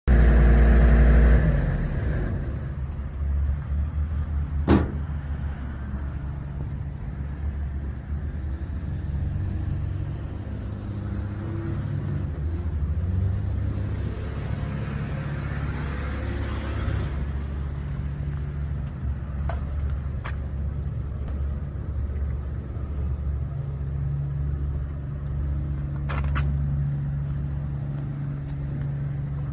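Diesel engine running at a steady speed, a low even drone. There is a sharp click about five seconds in and a few fainter clicks later.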